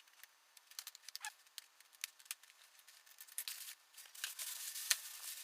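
A small cardboard product box being opened by hand: faint rustling and tearing of packaging with scattered small clicks, getting busier in the second half.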